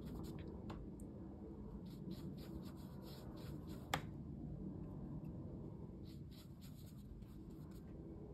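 Paintbrush working watercolour paint and stroking it onto rough cotton rag paper: faint scratchy brush strokes in a few short runs, with one sharp tap about four seconds in.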